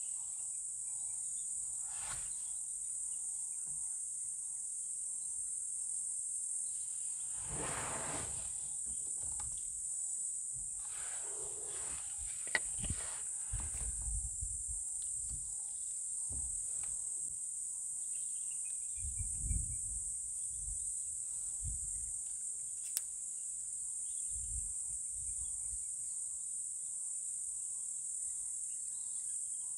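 Steady high-pitched drone of insects, with a few soft low bumps now and then.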